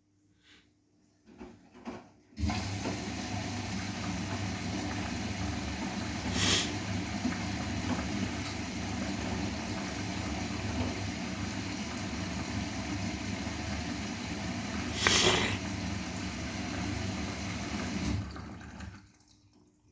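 Bosch WGA25202TR washing machine taking in water: a steady rush of water that starts suddenly a couple of seconds in, swells briefly twice, and cuts off near the end as the inlet valve closes.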